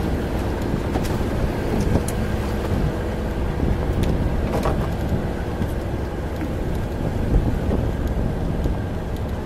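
Steady low drone of running machinery with a hum in it, and a few light knocks.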